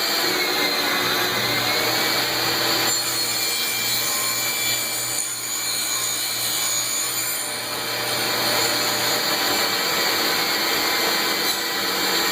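Power saw cutting 3/4-inch MDF board, with a shop vacuum running for dust collection; a steady, loud mechanical noise with a whine throughout.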